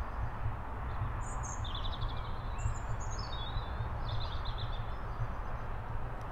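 Outdoor ambience: a steady low rumble with small birds chirping and twittering for a few seconds, starting about a second in.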